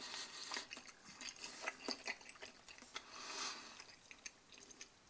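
Faint chewing and small mouth clicks from someone eating a mouthful of macaroni carbonara, with a soft breath about three seconds in.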